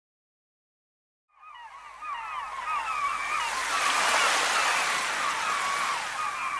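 An outdoor ambience fades in after about a second and a half of silence: a steady hissing wash with many short chirping calls repeating over it.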